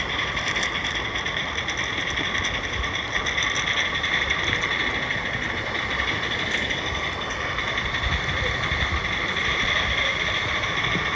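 Roundhouse 32mm gauge live steam saddle-tank locomotive running on the track, a steady hiss of steam with light mechanical rattle.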